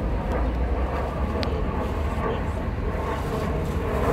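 Twin-engine narrow-body jet airliner passing overhead on approach with its gear down: a steady low rumble of its engines.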